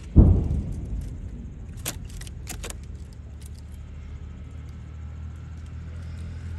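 Fireworks: one loud, deep boom of a shell bursting just after the start, dying away over about a second, then a quick run of sharp crackling pops about two seconds in, over a steady low rumble.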